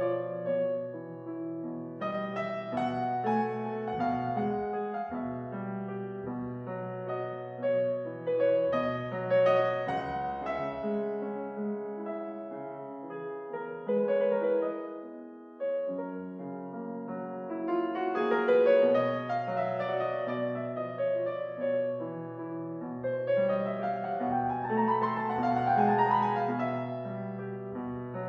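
Background piano music: a gentle melody over steady held notes, with quick rising runs of notes about two-thirds of the way through and again near the end.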